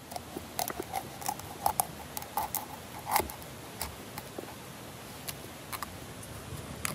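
Large kitchen knife cutting a raw whole chicken apart on a wooden cutting board: a string of irregular sharp clicks and knocks as the blade works through the carcass and strikes the board, the loudest about three seconds in, fewer after the middle.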